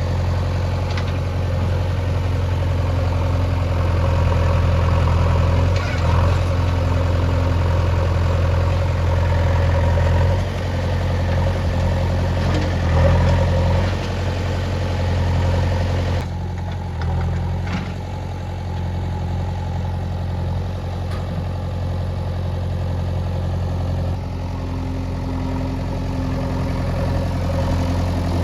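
Heavy diesel engine running steadily at low revs, with small swells in loudness, as earthmoving machinery works.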